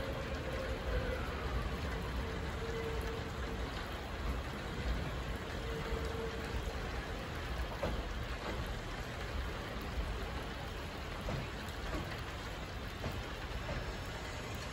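Electric train rolling slowly through the station yard at a distance: a steady wash of rolling noise with a low rumble, and a faint motor whine that falls in pitch in the first second, then comes back briefly twice as a steady hum.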